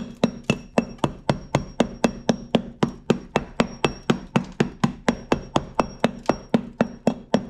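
A hammer knocking on the rusty steel sill and wheel arch of a 1998 Nissan Elgrand in quick, even blows, about four a second, each with a short metallic ring. The knocking probes how far the rot goes before the rotten metal is cut out.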